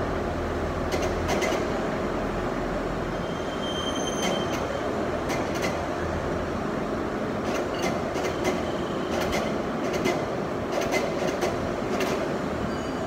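Steady running noise of large engine lathes turning metal, with scattered sharp metallic clinks and a brief high squeal about four seconds in.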